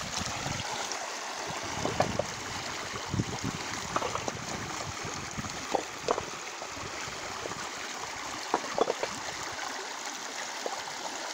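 Brown floodwater rushing through a breach in a village road: a steady rush of fast-flowing water, with short gurgles and splashes every few seconds.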